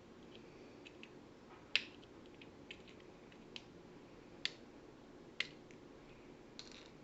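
Sharp small metal clicks and taps, a few seconds apart, from working the retaining clip off an Abus 72/40 padlock's lock cylinder; the loudest comes about two seconds in.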